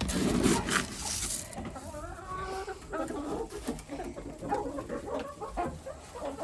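Chickens clucking, many short calls overlapping, after being called to sunflower seeds. A loud rustling noise fills the first second and a half.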